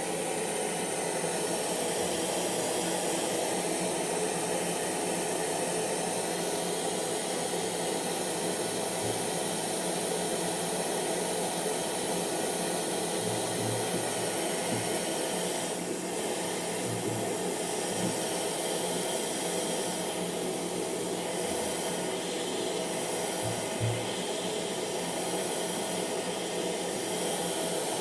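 Hair dryer running steadily: a continuous whooshing blower noise with a faint motor hum, holding level throughout, with a few faint low bumps.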